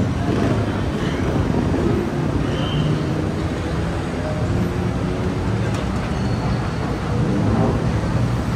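Steady street ambience: traffic rumbling past, with people's voices in the background.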